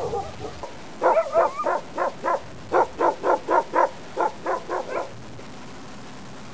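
A dog barking in a quick run of about fifteen sharp barks, roughly three to four a second, that stops about five seconds in.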